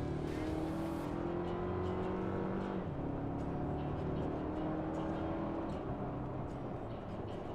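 Toyota Tacoma's 2.4-litre turbocharged four-cylinder engine pulling under acceleration, its pitch climbing steadily. The pitch drops back about three seconds in, then climbs again.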